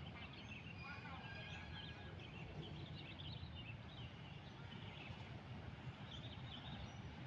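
Low steady rumble of a fuel tank train rolling slowly during shunting, with scattered short high bird chirps over it.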